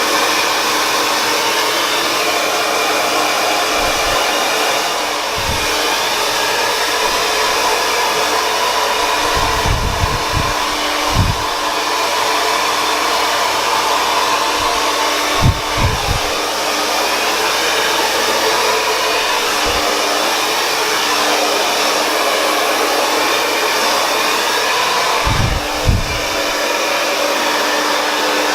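Berta 1875-watt hair dryer running steadily, a continuous blowing rush with a steady hum, as it dries wet hair. A few brief low thumps come through the airflow along the way.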